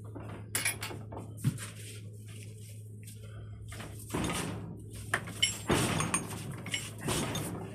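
A rammer and rocket tube being handled while packing strobe composition: irregular light knocks and short scrapes, clustered in the second half.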